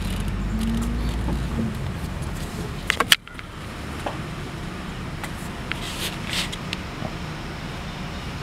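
Car running, heard from inside the cabin as a steady low rumble. A few sharp clicks come about three seconds in, after which the sound is quieter.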